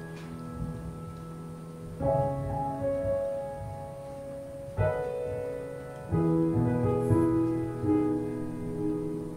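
Grand piano playing slow chords, each struck and left to ring and fade, with fresh chords about two, five and six seconds in.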